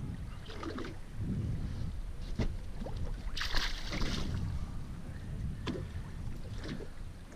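A bluefish dropped over the side of a small boat hits the water with a splash about three and a half seconds in. Wind rumbles on the microphone throughout, with a few short clicks and knocks.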